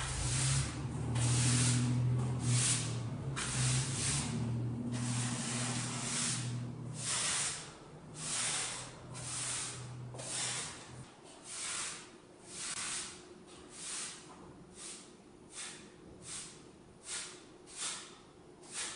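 Broom sweeping a bare floor in rhythmic swishing strokes, about one a second, which become shorter and quicker in the second half. A low hum underneath stops about halfway through.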